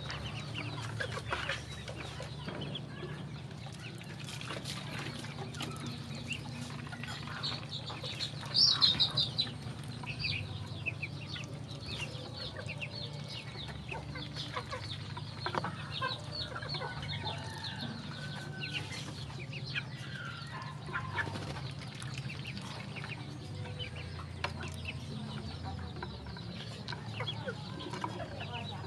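Ducklings peeping over and over as they feed, many short high calls overlapping, with one louder cry about nine seconds in. A steady low hum runs underneath.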